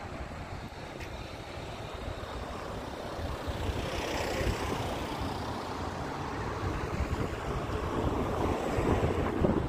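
Road vehicle noise: a steady rush of traffic or tyres that swells about four seconds in and again, louder, near the end.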